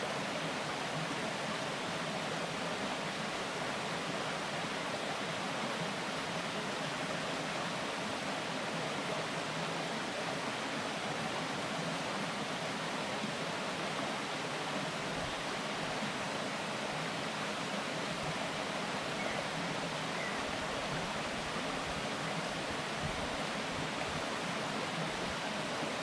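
Shallow mountain stream babbling over a rocky bed: a steady, even rush of running water.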